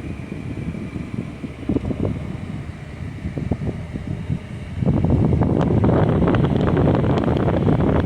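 Road noise from a car on the move, with gusty wind rumbling on the microphone; about five seconds in it suddenly grows much louder and stays loud.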